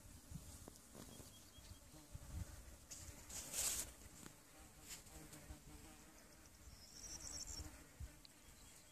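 Faint countryside ambience: wind rumbling unevenly on the microphone, with short bursts of high, thin, insect-like buzzing, clearest near the end. A short hiss comes about three and a half seconds in.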